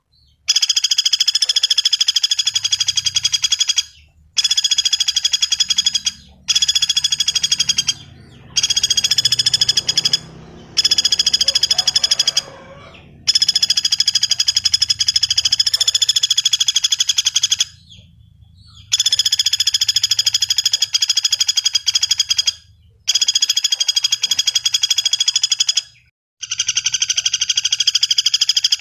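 Pelatuk bawang (common flameback woodpecker) giving long, fast rattling calls, one after another, each lasting a few seconds with brief breaks between them.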